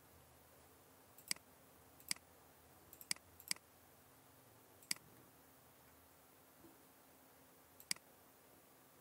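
Computer mouse clicks: about seven short, sharp clicks at irregular intervals, a couple of them in quick pairs, over a faint steady background hum.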